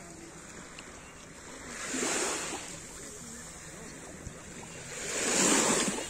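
Small, gentle waves washing up onto a sandy beach. Two wash-ins about three seconds apart, around two and five seconds in, the second one louder.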